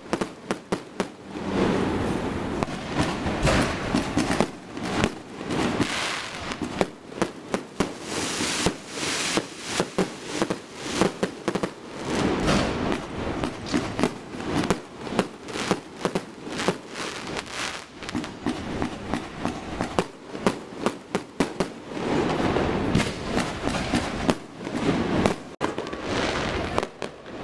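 Aerial consumer fireworks going off overhead: a rapid, unbroken string of sharp bangs and crackles, several a second.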